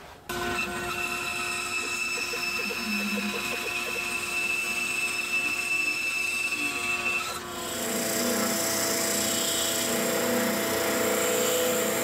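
Bandsaw with a 1/4-inch blade running steadily while a small poplar block is fed through it to cut a curve. About seven seconds in it gives way to an oscillating drum sander running steadily as the curve is sanded smooth.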